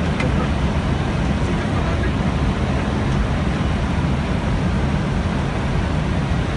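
Steady low rumble and rush of air inside an Airbus A320-231 cockpit in flight: airflow over the nose and the jet engines' noise.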